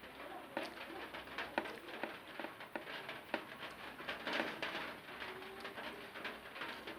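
Close-up eating sounds: wet chewing and mouth smacks, heard as many short clicks in an irregular run. A low coo, like a pigeon's, sounds faintly in the background past the middle.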